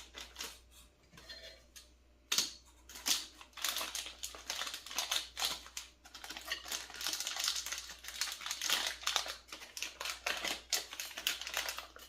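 Small plastic bags of electronic components being handled and opened: irregular crinkling and sharp little clicks, busier from about two seconds in.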